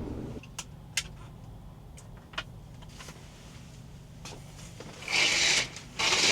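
Van engine idling with a steady low hum, with a few light clicks, then two short, loud rushing noises about a second apart near the end.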